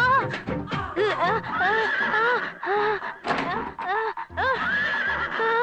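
A woman's high-pitched cries, repeated in short rising-and-falling wails, as from the sting of a tattoo needle.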